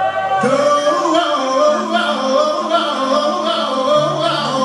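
Music for a stage dance routine: a solo voice sings a wavering, bending melody over held low notes, with a new phrase entering about half a second in.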